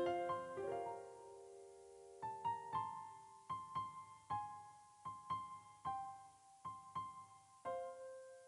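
Background piano music: a gentle melody of single struck notes that ring and fade, with a short gap about two seconds in before a repeating higher note takes over.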